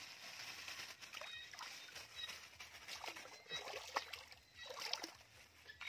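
River water sloshing and splashing in small, irregular bursts around a person wading chest-deep and moving along a fishing net.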